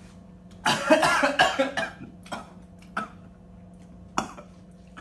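A man coughing and choking on a mouthful of instant ramen caught in his throat. A hard coughing fit comes about a second in, then three single coughs mixed with laughter.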